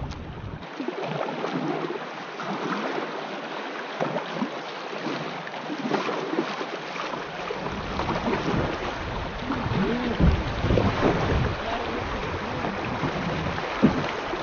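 Fast, shallow river water rushing and splashing over a riffle around a kayak as it runs through, with a couple of sharp knocks, one about two-thirds of the way in and one near the end.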